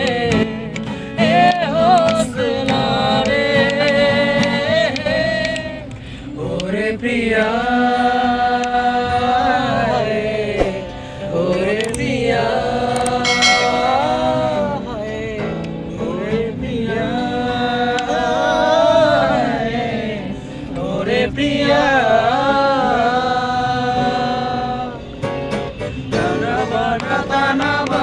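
A man singing a slow melody in long, drawn-out phrases, accompanied by an acoustic guitar.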